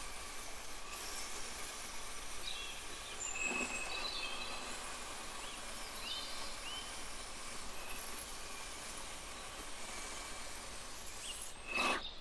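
Stained-glass grinder running, its wet diamond bit grinding the edge of a piece of glass with a steady gritty hiss and a faint motor whine. A short louder knock comes near the end.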